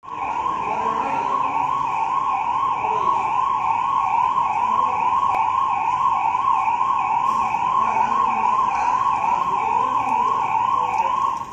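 Ambulance siren sounding a fast warble, its pitch rising and falling about three times a second, then cutting off suddenly near the end.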